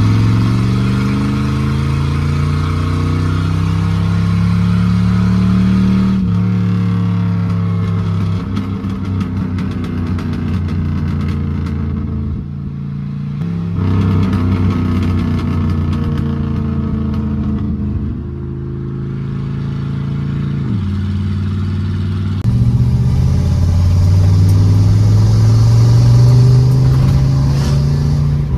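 A car engine pulling up through the revs, easing off, and pulling again, with sudden drops in pitch at the gear changes. Each time it slows down the exhaust gives a rapid crackle of pops, most of it in the middle stretch and again near the end.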